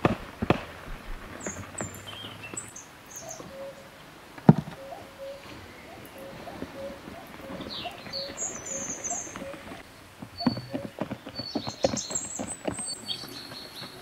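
Birds chirping and calling, with scattered sharp knocks and clicks. The loudest knock comes about four and a half seconds in, and a cluster of them follows near the end.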